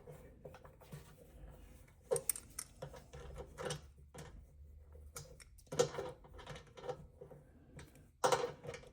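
Scattered light clicks and knocks of a compressor tank's drain valve fitting being handled, worked open and closed by hand to check it moves properly.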